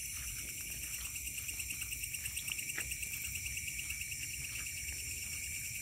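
Night insect chorus of crickets: a steady, fast-pulsing trill with continuous higher buzzing above it, and a few faint clicks.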